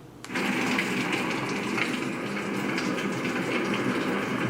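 Electronic white noise machine's speaker playing a recorded fire-like sound: a steady hiss with faint crackles, which the listener says sounds like something burning. It starts after a brief drop in level about a quarter second in, as the machine switches from the previous track.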